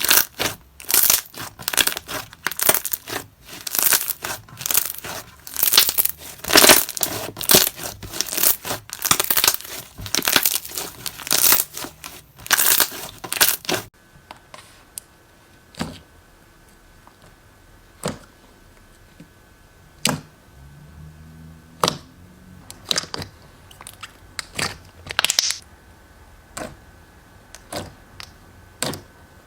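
Thick, glossy slime being squeezed and pressed by hand, giving dense rapid crackling and clicking. About halfway through it changes to a quieter clip with single sticky pops and clicks every second or two.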